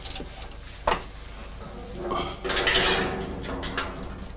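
Metal latch and padlock on a storage-room door being worked by hand: a sharp metallic click about a second in, then rattling and scraping as it is fastened.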